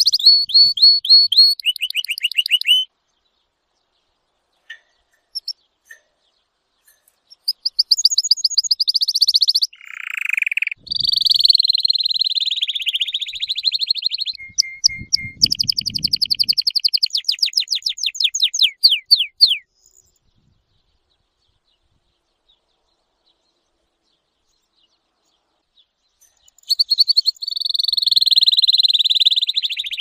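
Domestic canary singing: fast rolling trills of rapidly repeated high notes, with a few lower whistled notes, in separate phrases. There are two long silent pauses, one a few seconds in and one about two-thirds of the way through.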